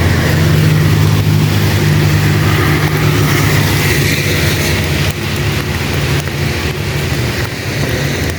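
A motor vehicle's engine running close by, a steady low hum that eases off about five seconds in, heard over the even hiss of heavy rain.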